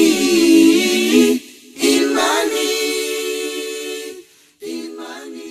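Choir singing unaccompanied, holding long chords with short breaks between them, the last one softer and fading away as the song closes.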